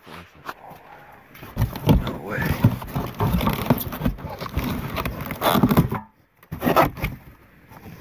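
Objects being shifted around in a cardboard box: irregular knocks, scrapes and rustling of cardboard, glass and metal items being handled.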